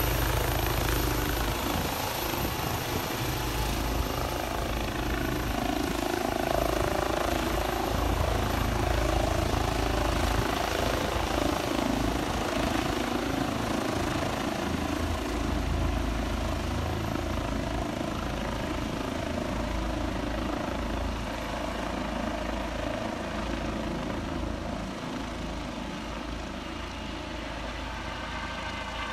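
Airbus EC135 rescue helicopter's main rotor and twin turbine engines, lifting off and climbing away; its sound is steady and fades slowly as it moves off.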